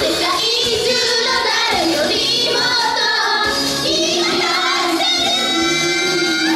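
A live pop song sung by young female voices of a Japanese idol group over backing music, with a long held note from about four and a half seconds in.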